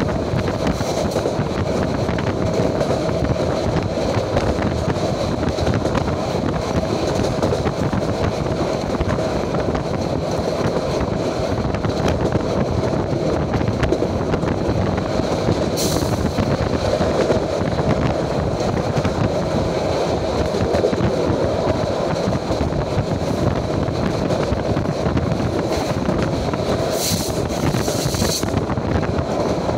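Moving passenger train heard from inside the carriage: a steady rumble and rattle of wheels on track. A short high-pitched screech comes about halfway through, and another lasting about a second near the end.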